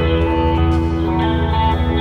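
Background R&B music with guitar over a steady beat.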